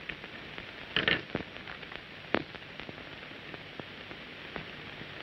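Hiss and crackle of a worn 1930s optical film soundtrack, with scattered clicks and pops and a louder cluster of them about a second in.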